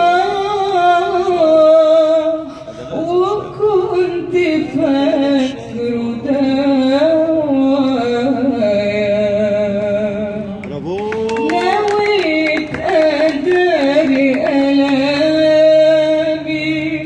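A woman singing an Arabic song into an amplified microphone, with long held, wavering, ornamented notes over a faint steady low tone. A brief cluster of sharp clicks comes about eleven seconds in.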